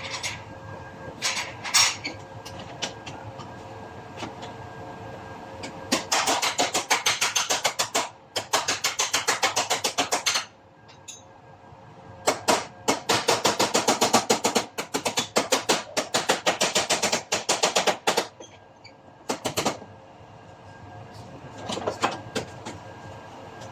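Body hammer tapping sheet metal against a dolly to work out a dent: two long runs of rapid, evenly spaced light taps, with a few single knocks before and after.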